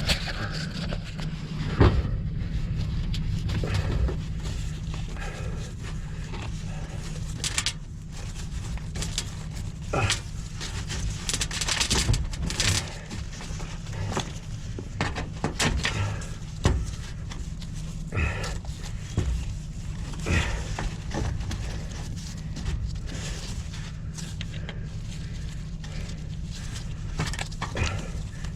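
Irregular knocks, clicks and short scrapes of handling and movement, over a steady low hum.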